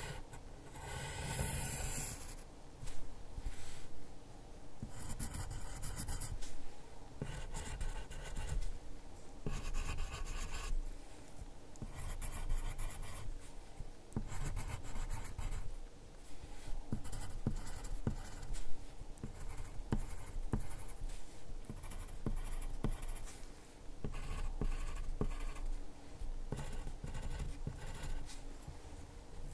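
HB pencil drawing on copy paper: short bursts of graphite scratching as small strokes are sketched, with brief pauses between them.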